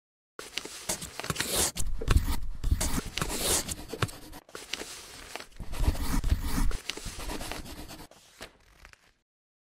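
Paper sound effects: rough rasping, scratching and tearing of paper in several bursts, fading out near the end.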